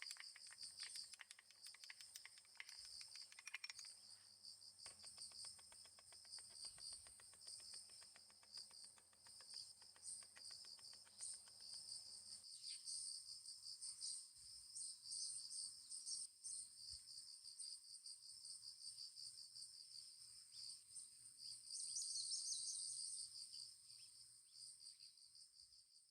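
Crickets chirring steadily, a high pulsing trill, with faint rapid ticking underneath that stops about halfway through.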